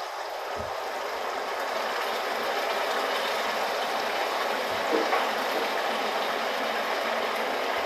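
Sugar melting in hot ghee in a wok, a steady sizzle that grows a little louder over the first couple of seconds and then holds even.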